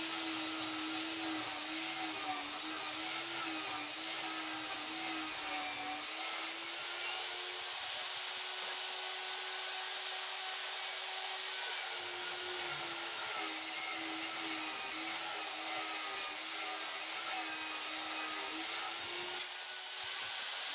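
A small electric power tool running steadily with a hissing whine, its motor pitch repeatedly dipping and recovering as it bears into the work. For a few seconds in the middle it runs freely at a slightly higher, even pitch.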